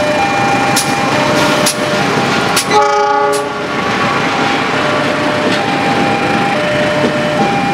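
Diesel-electric locomotive passing with its train, sounding one short horn blast about three seconds in over the rumble and clatter of the wheels. Behind it the level crossing's warning alarm keeps repeating a two-tone ding-dong signal.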